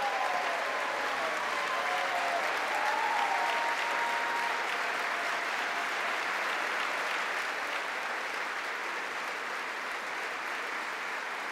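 A large crowd clapping steadily in a standing ovation, the applause easing slightly in the last few seconds.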